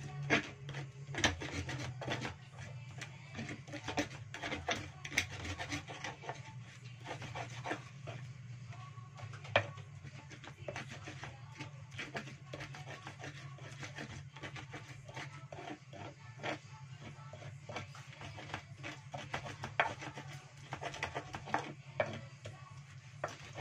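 Pestle (ulekan) grinding a chilli, shallot and garlic spice paste in a flat Indonesian cobek mortar: irregular scraping and rubbing broken by sharp taps, over a steady low hum.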